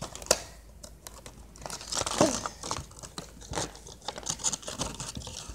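Cardboard toy box and clear plastic packaging being handled and pulled open: irregular plastic crinkling with scattered clicks, the loudest cluster about two seconds in.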